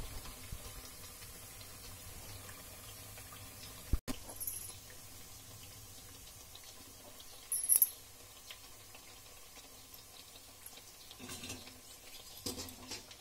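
Fresh black-eyed pea vadas deep-frying in hot oil, a faint steady sizzle. A short break comes about four seconds in, with brief sharp clinks about four and seven and a half seconds in and a few light clicks near the end.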